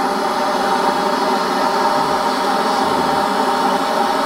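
Handheld gas blowtorch running with a steady hiss, its flame held into the open end of a perforated pellet-smoker tube to light the wood pellets.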